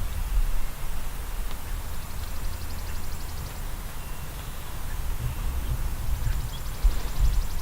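A low, uneven rumble of wind buffeting the microphone in the woods, with a faint, fast, high songbird trill twice, once in the middle and once near the end.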